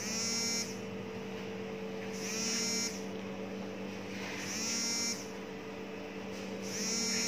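Deck baking oven's timer buzzer sounding a short high buzz about every two seconds, four times, over a steady electrical hum; the timer signals that the bake is finished.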